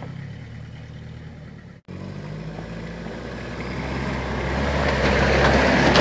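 Pickup truck engine running at low revs as it moves off along a dirt track. After a cut, a truck's engine and tyre noise grow steadily louder as it drives up close, ending in a loud rush as it passes right by.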